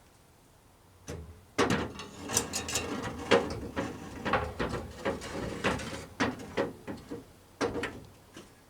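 Car radiator being lowered into its place in the engine bay: a run of metallic knocks, clunks and scrapes that starts about a second in and trails off near the end.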